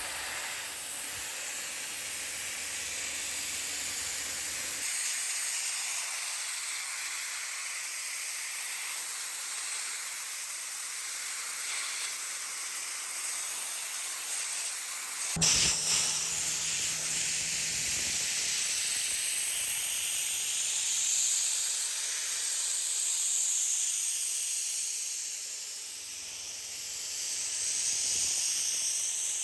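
Sandblaster nozzle hissing steadily as compressed air and abrasive glass media strip a car's rear axle housing, with a sharp knock about halfway through.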